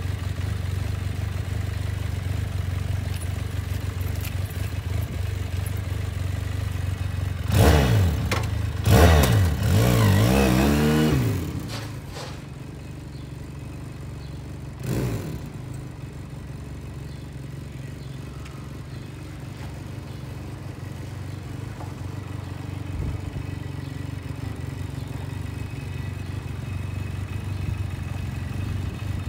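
Motorcycle engine idling, then revved hard with the pitch rising and falling several times as the bike pulls away, about eight to eleven seconds in. After that the engine runs more quietly and steadily, with one brief louder rev near the middle.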